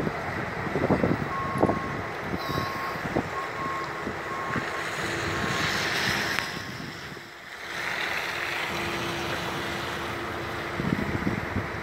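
Snowstorm wind buffeting the microphone over a steady rush of traffic, with a series of high beeps about a second in and a steady low hum through the second half.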